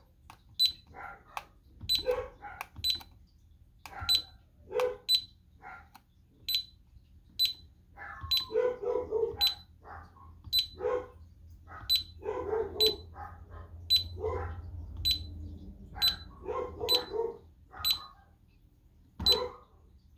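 DSC alarm keypad giving a short high beep with each press of its scroll key, about once a second, as its event entries are paged through. A dog barks in several bursts over the beeps.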